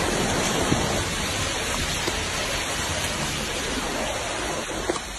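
Steady rushing wash of muddy floodwater pouring down a street in a flash flood, easing a little near the end.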